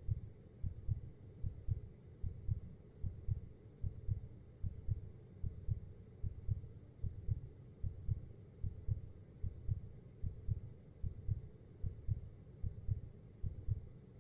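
Heartbeat sound effect: a slow, steady lub-dub of low, soft double thumps, a little faster than one beat a second.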